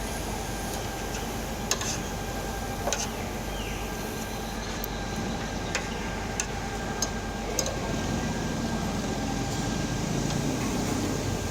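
Steady background din of a busy market, with a handful of sharp, separate clicks of a spoon on a plate during the meal.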